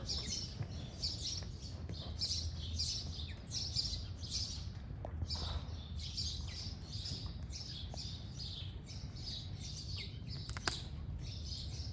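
Horse trotting on sand arena footing: an even rhythm of short, high scuffing beats, about two to three a second, over a steady low rumble. One sharper click near the end.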